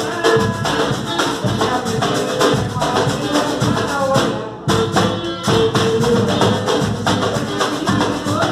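Upbeat dance music with a steady, rhythmic percussive beat. It dips briefly about four and a half seconds in.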